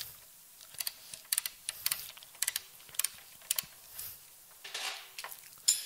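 Irregular light metallic clicks and taps as a scooter's front axle shaft is twisted back and forth with a 17 mm wrench to work it out of the wheel hub. A brief scrape comes near the end, then one sharp click.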